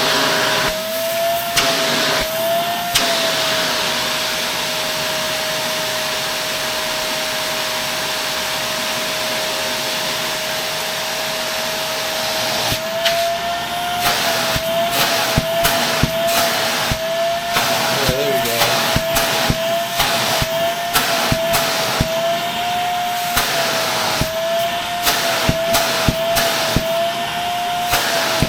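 Shark Navigator Lift-Away upright vacuum running with a steady high motor whine over a rush of air. From about halfway on, the pitch wavers and a run of crackles and clicks comes as the suction works over a dusty filter.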